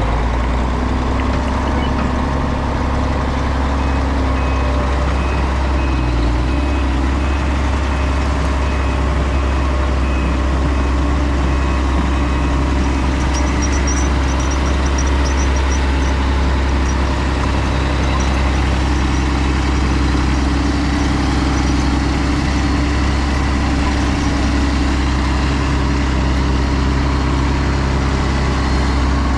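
Heavy diesel engines running steadily under load: a Case IH Quadtrac tractor pulling a tile plow through the ground, with a cable-hitched excavator's diesel helping the pull.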